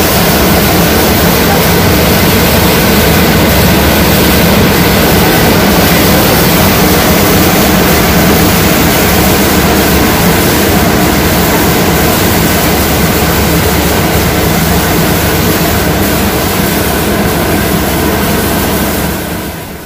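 Corn grinding mill machinery running steadily: a loud, continuous mechanical din with a constant hum underneath. It fades out near the end.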